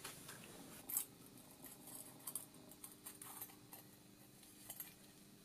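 Faint clicks and light scraping of the metal pressure-sensor housing being handled in gloved hands, with one sharper click about a second in.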